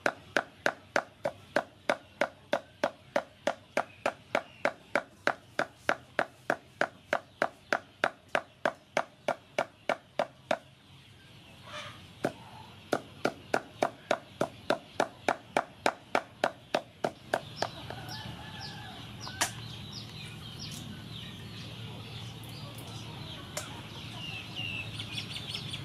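Cleaver chopping pork into mince on a wooden chopping board: quick regular strokes about three and a half a second, a short break about ten seconds in, then more chopping until about seventeen seconds. After that a steady background with high chirping bird calls.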